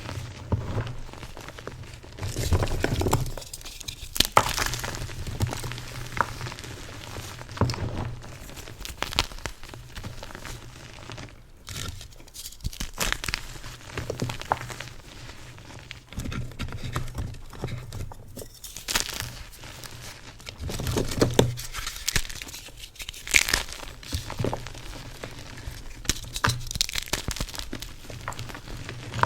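Crusty, flaky, dyed yellow gym chalk being crushed, crunching and crumbling in an irregular run of sharp crackles, with louder crunches now and then.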